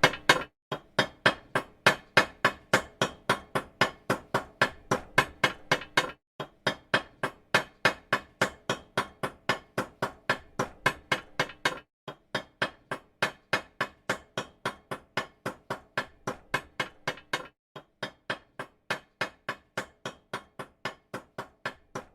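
Small metal hammer tapping in a steady rhythm, about three to four strikes a second, each with a short metallic ring. The tapping breaks off briefly every six seconds or so.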